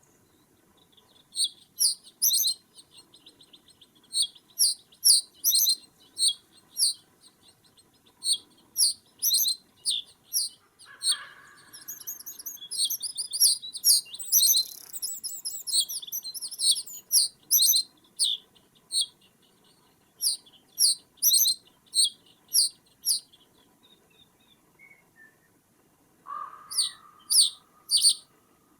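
Small birds calling in runs of short, high chirps, several a second, with pauses between runs and a faster trill midway. A brief lower sound comes twice, about eleven seconds in and near the end.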